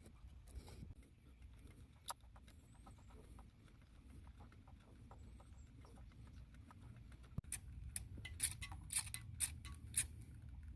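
Plastic spray-bottle trigger pump clicking as it draws engine oil out of a lawn mower's crankcase through the fill tube. There is a single click about two seconds in, then a run of quick clicks in the last few seconds.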